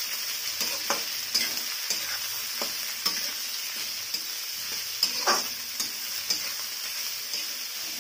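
Chopped onions and garlic sizzling in hot mustard oil in a kadhai, stirred with a spatula that scrapes the pan about once a second, one stroke louder about five seconds in.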